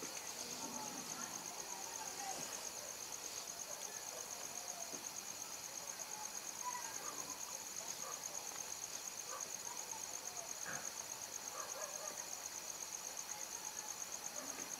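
A cricket trilling continuously in a steady, high, rapidly pulsing tone, with faint scattered rustles and handling noises underneath.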